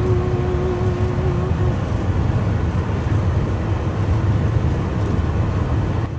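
Steady low rumble of a moving passenger train, heard from inside the car. A single held tone sounds over it for the first second and a half, then stops.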